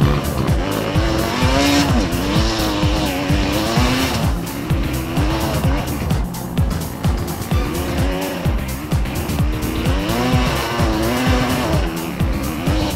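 Dirt bike engine revving up and down repeatedly with the throttle while ridden, with background music over it.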